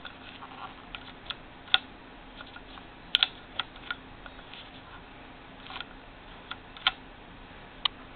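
Zig-zag dial knob of a Morse 4000 sewing machine being handled, giving about ten sharp plastic-and-metal clicks at irregular intervals. The knob will not stay in its set position.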